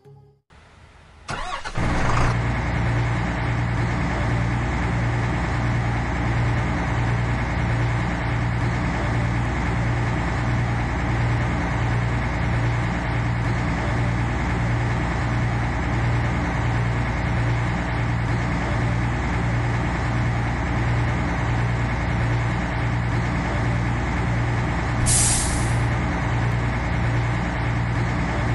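An engine cranking and catching, then idling steadily with an even pulse. A short hiss of air comes near the end.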